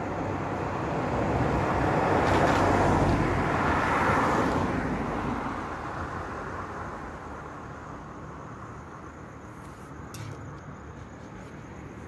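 A car passing on a wet road: the hiss of its tyres on the wet surface swells to a peak about three to four seconds in, then fades away.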